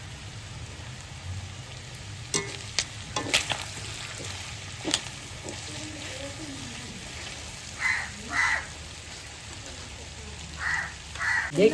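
Squid, onion, tomato and capsicum frying in oil in a pan, with a steady sizzle. A spoon clicks against the pan several times between about two and five seconds in, and there are short scrapes of stirring near the end.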